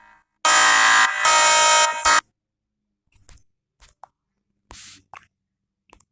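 Emergency Alert System style alarm: a loud, harsh buzzing tone blares for nearly two seconds with a brief dip partway through, then stops. A few faint short clicks follow before the tone starts up again near the end.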